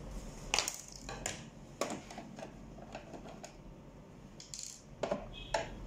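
Several irregular hard plastic clicks and knocks from handling an Epson LQ-310 dot-matrix printer as it is taken apart: the ribbon cartridge is lifted clear and a screwdriver is put to the case screws.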